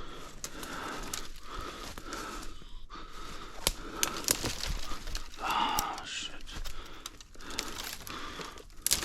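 Rustling and crunching of dry leaves and brush, broken by short gaps, with heavy breathing coming and going about once a second.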